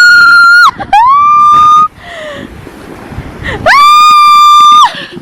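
A child's high-pitched screams, held at a steady pitch and very loud: one ending just under a second in, a second straight after, and a longer one about four seconds in.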